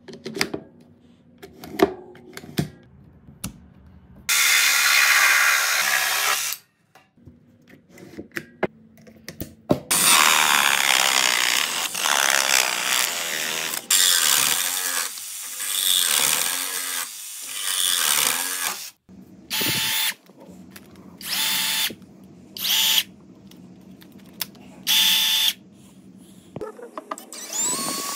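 Cordless Worx power tools: clicks of a battery being fitted into the Worx Axis WX550 saw, then the saw running, briefly at first and then for a long stretch as it cuts through a pipe. Near the end come several short bursts of a motor, and the Worx Switchdriver drill-driver drilling into board.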